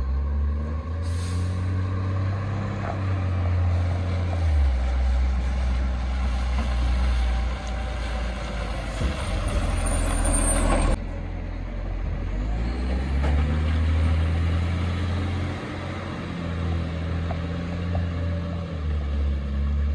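Diesel garbage truck engine running as the truck drives up and passes, its note shifting several times. A brief air hiss sounds about a second in, and a longer hiss builds and cuts off sharply about 11 seconds in, typical of air brakes.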